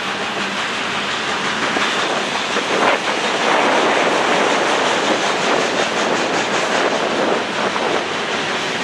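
Freight train's tank cars and covered hopper cars rolling past, a steady noise of steel wheels on rail, a little louder from about three seconds in, with a run of quick clicks in the second half.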